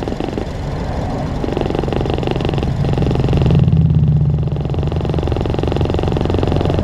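2006 Honda CR-V engine running, getting louder for about a second around four seconds in and then settling back. It sits on a worn motor mount, which the owner blames for vibration at idle and shaking under acceleration.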